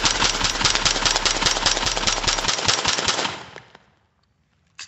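AR-15 firing a rapid string of shots through a Witt Machine .223 direct-thread suppressor. The shooting stops about three seconds in, and a single sharp click follows near the end.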